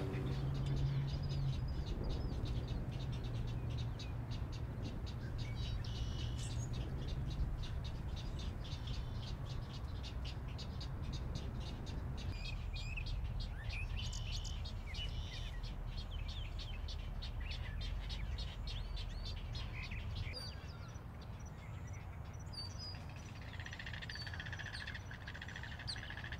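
Wetland bird sounds: short chirps and whistled calls over a fast, even pulsing trill that stops about two-thirds of the way through, with a steady low rumble beneath.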